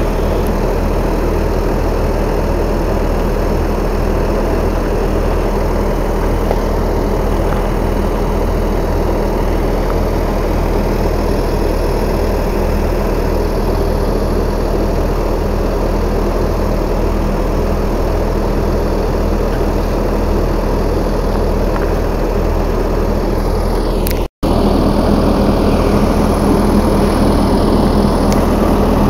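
Fendt 718 tractor's six-cylinder diesel engine running steadily with an even low hum. The sound cuts out for a split second about three-quarters of the way through and comes back slightly louder.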